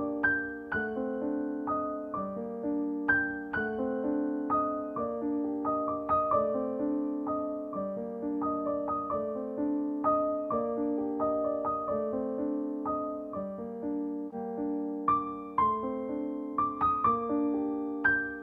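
Piano music, single notes and chords struck one after another and left to ring.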